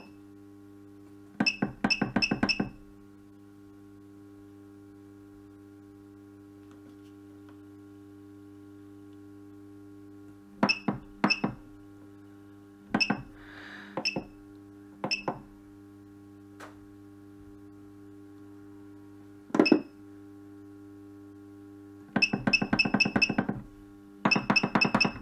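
Key beeps from an RU-628 ultrasonic physiotherapy machine as its control-panel buttons are pressed: short high-pitched beeps, a few singly and in small groups, then two fast runs of many beeps near the end. They sound over a steady low hum, and show the unit powered and responding.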